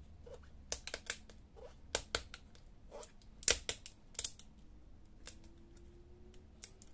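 Irregular small clicks and crackles as fingers peel the adhesive tape off a laptop LCD panel's display cable connector, the loudest a little past the middle.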